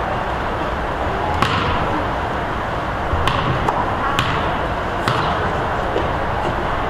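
A basketball bouncing on the court five or so times at uneven intervals, over a steady hubbub of gym background noise.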